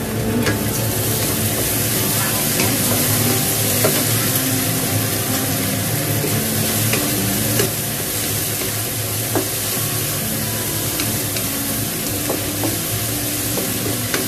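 Mushroom strips sizzling in a wok while a wooden spatula stirs them, with a few sharp knocks of the spatula against the pan. A steady low hum runs underneath.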